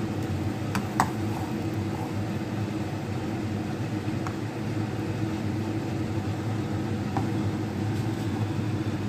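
A steady low mechanical hum, with a few faint light taps as a ball of wet flour dough is dabbed onto a nonstick frying pan to lay down a thin wrapper.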